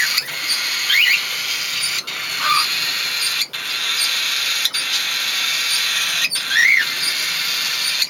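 Cockatiels in an aviary making a few short, high chirps that glide up and down over a steady hiss, with a louder rising-and-falling chirp near the end.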